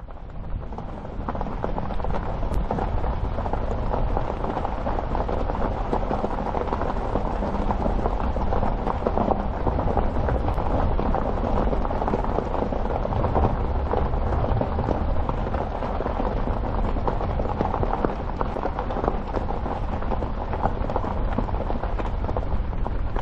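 Footsteps crunching through dry fallen leaves, a steady dense crackle.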